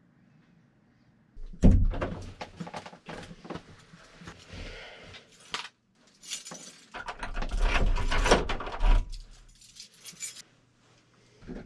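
Close handling noise: clattering, rustling and deep thumps in two stretches of about four seconds each, with two short knocks near the end.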